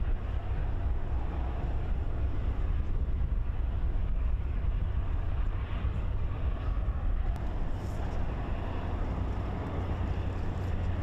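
Tugboat engines running steadily alongside a battleship on the river, a constant low rumble with a wash of outdoor noise.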